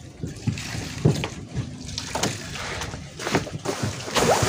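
Water sloshing and splashing around a small wooden outrigger canoe, with scattered knocks and bumps from people moving about in the hull.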